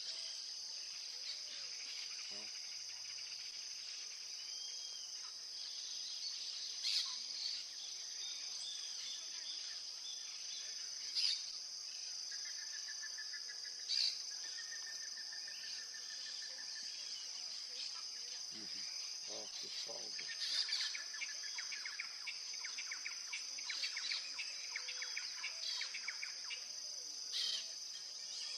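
Steady high-pitched insect chorus with assorted wild birds calling over it: short sharp calls every few seconds, a rapid trill in the middle, and scattered small chirps.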